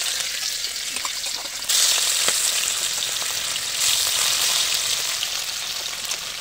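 Turmeric-coated fish pieces sizzling in hot oil in an iron kadai. The sizzle surges about two seconds in and again near four seconds as more pieces are dropped in, with a few light clicks of tongs against the pan.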